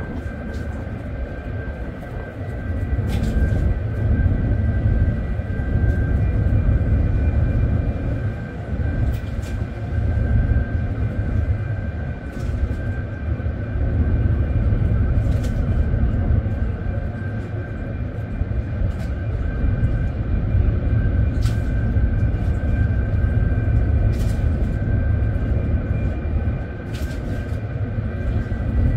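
Steady low rumble of a ship's running machinery, swelling and easing every few seconds, with a faint steady whine above it. Light clicks come every few seconds.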